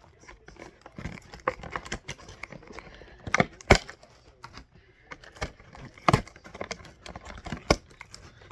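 Action-figure box packaging, cardboard and plastic, being handled, pried and torn open, with scattered sharp clicks and snaps. The loudest snaps come about three and a half seconds in, again about six seconds in, and near the end.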